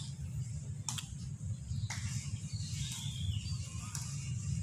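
Two cats eating dry kibble from a styrofoam tray, crunching with sharp clicks about once a second, over a steady low rumble.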